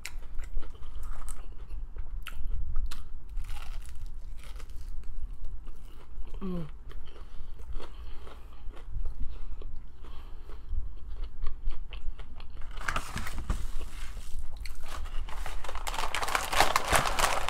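Close-miked eating: a person biting, crunching and chewing crispy fried chicken, with small wet mouth clicks. Two louder, longer stretches of crackly crunching come in the last few seconds.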